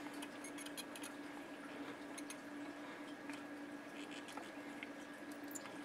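Faint crackle of rosin flux, scattered small ticks, as a soldering iron melts solder onto a circuit board's pads, over a steady low hum.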